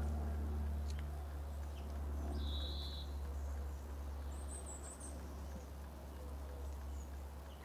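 A steady low hum, with a small songbird's brief high notes over it: one short note about two and a half seconds in and a higher twitter about four and a half seconds in.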